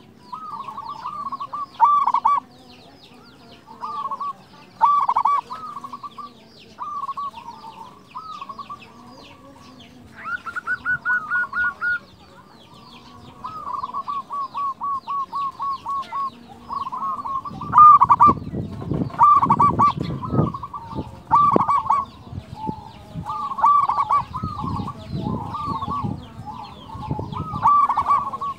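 Local Indonesian zebra dove (perkutut) singing its cooing song: short phrases repeated every second or two, with a quick run of rapid, evenly spaced coo notes about a third of the way in. Faint high chirping of small birds sounds behind it, and a low rough noise joins under the calls in the last third.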